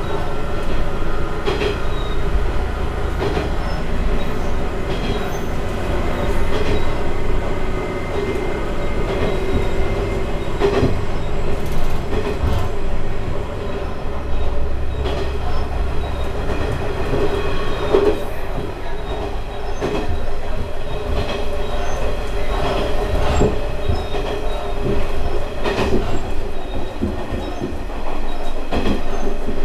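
Single-car diesel railcar running along single track, heard from inside the car: a steady engine drone and rumble, with the wheels clicking over rail joints.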